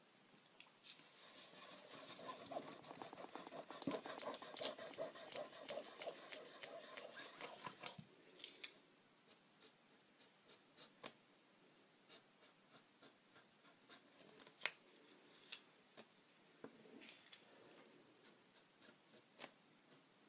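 Faint scratching of a black marker tip drawing outlines on a small paper card in quick short strokes, busiest over the first eight seconds or so, then only scattered light ticks and taps.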